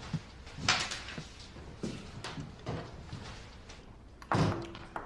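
A few separate knocks and thuds, the loudest about four seconds in.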